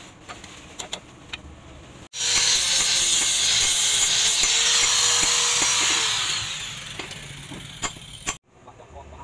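Electric angle grinder with a sanding disc grinding a wooden handle scale: a loud hissing grind over the motor's steady whine starts abruptly about two seconds in, then eases off and fades before cutting off near the end. A few light taps and clicks come before it.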